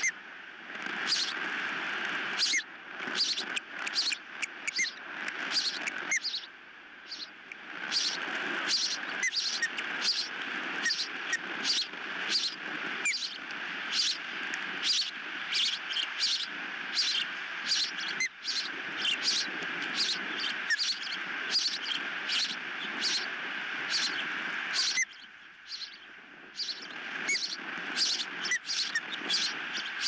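Ospreys calling: a long, irregular run of short, high-pitched chirps, with two brief lulls, over a steady background hiss.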